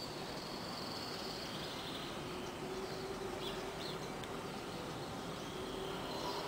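Steady outdoor background noise with faint high-pitched chirps now and then.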